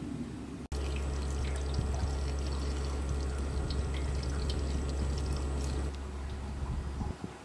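Tap water pouring steadily onto napa cabbage leaves in a colander in a sink, with a full, low rumble under the splash. It starts abruptly within the first second and eases off near the end.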